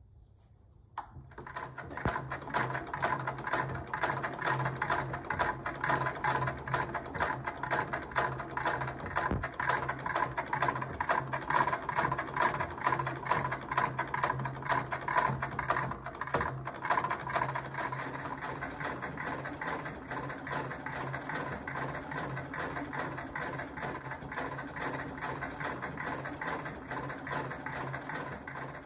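Treadle sewing machine stitching: a rapid, even clatter of the needle and works over a low steady hum. It starts about a second in and runs a little quieter in the second half.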